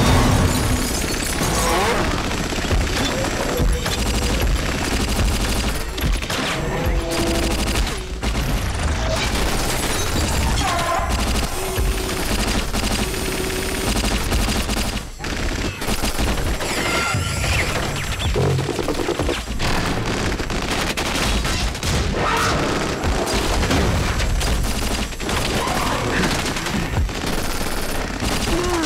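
Action-film soundtrack: heavy, continuous bursts of automatic gunfire with booms and crashes, mixed with music.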